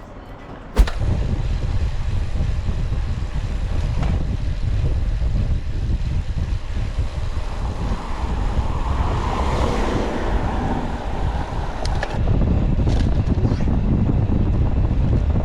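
Wind buffeting the microphone while riding a bike at speed: a loud, steady low rumble that starts abruptly after a click about a second in. A rushing noise swells and fades around the middle.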